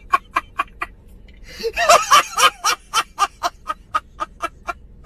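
Laughing sound effect: a fast, evenly paced run of short 'ha' bursts, about four to five a second, loudest in the middle.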